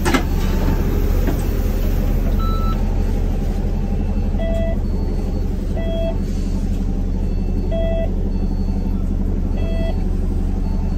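Bus standing at a stop with its door open: its engine idles with a steady low rumble, while a short electronic beep repeats every one and a half to two seconds from about four seconds in.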